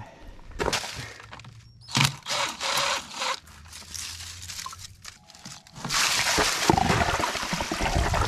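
Water gushing steadily out of a hot tub's PVC drain pipe once its cap is off, starting about six seconds in. Before that, a cordless drill briefly turns the drain cap, among scattered clatter.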